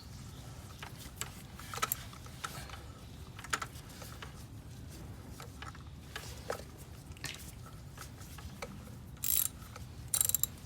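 Scattered small clicks and knocks of hand tools and spark-plug parts being handled in the engine bay, with two short rasping bursts near the end.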